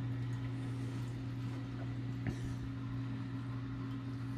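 Steady low electrical hum of a Coralife BioCube reef aquarium's pumps running, over a soft hiss of moving water. There is a single sharp click about halfway through.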